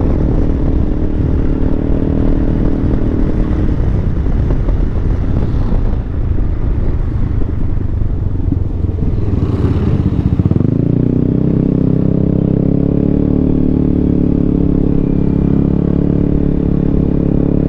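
Wind rush and road noise on a helmet-mounted microphone while a Yamaha X-Max scooter is ridden at speed. About ten seconds in the rushing drops away and the scooter's single-cylinder engine comes through as a steady hum as it slows.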